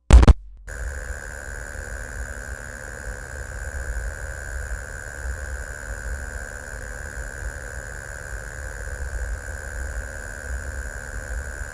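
A sharp, loud burst of static right at the start, then a steady electronic hiss with a constant high whine and a low rumbling hum, like the degraded tape-noise drone of analog horror.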